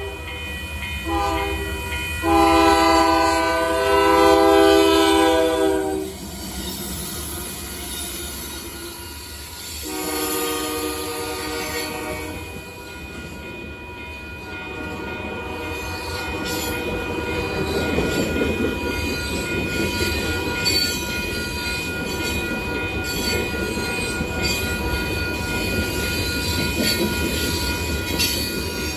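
Freight locomotive horn sounding a chord in several blasts: a short one near the start, a long one from about two to six seconds in, and another about ten seconds in. After that the diesel locomotives and freight cars rumble past, with a steady thin squeal from the wheels on the rails.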